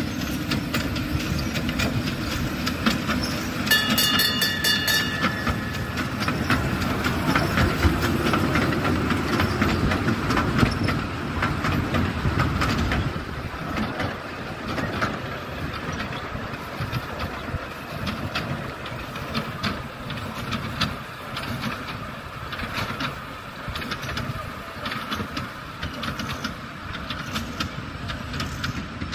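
Miniature ride-on train running along its narrow-gauge track, with a steady rumble and wheels clicking over the rail joints. A brief high tone with several overtones sounds about four seconds in, and the running gets a little quieter after about thirteen seconds.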